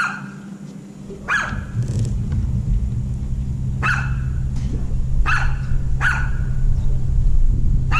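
A dog barking, about five single barks spaced a second or more apart, over a steady low hum that starts about a second in.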